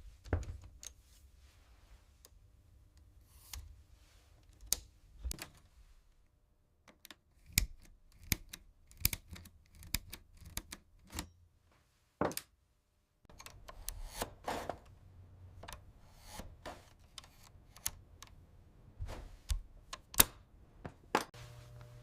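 Irregular sharp metallic clicks and clacks from a typewriter's mechanism being worked on, sparse at first and coming thicker in the second half.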